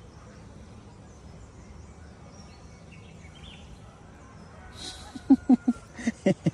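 Faint outdoor ambience with light bird chirps, then a quick run of short, pitched monkey calls, about five a second, near the end.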